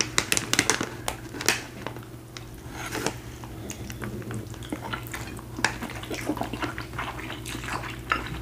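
Two people slurping and chewing spicy noodles close to the microphone: many short, wet clicks and smacks, busiest in the first couple of seconds.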